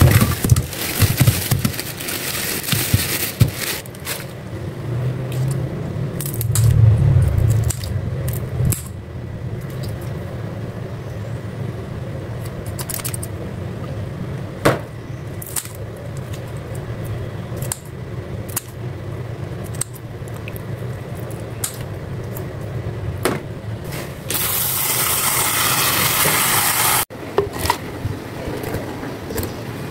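Tap water running into a plastic colander in a stainless steel sink, then scattered sharp clicks and snips of scissors trimming raw prawns over a low steady hum. Near the end, a few seconds of running water stop abruptly.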